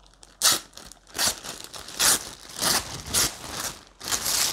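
Clear plastic polybag crinkling in about six short, irregular bursts as it is handled and opened to get a jacket out.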